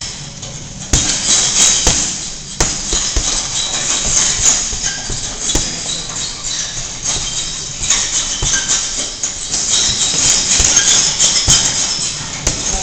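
Punches smacking into focus mitts at uneven intervals, with music playing underneath.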